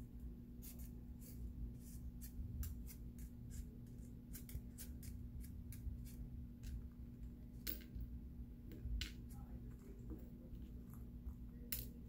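Cuban Amazon parrot's toenails clicking on a hard desktop as it walks, a string of short, irregular taps, thickest in the middle of the stretch.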